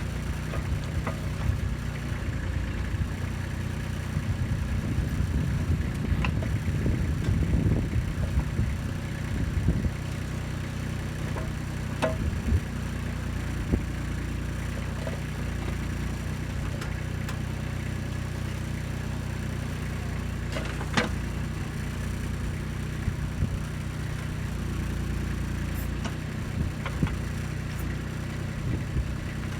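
Kubota B2630 compact tractor's diesel engine running steadily while digging with the backhoe, louder and rougher for a few seconds early on. A few sharp knocks sound near the middle.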